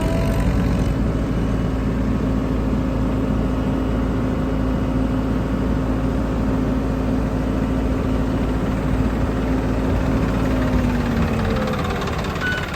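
Heavy diesel machinery engine running steadily, its tone dropping slightly in pitch near the end.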